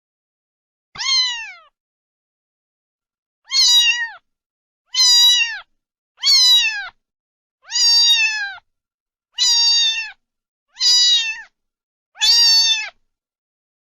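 A cat meowing eight times in a row, each meow about half a second long, high-pitched and falling away at the end, with short silent gaps between them.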